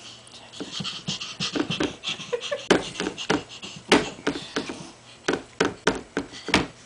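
A baby making quick breathy panting noises and sharp mouth clicks, in irregular bursts.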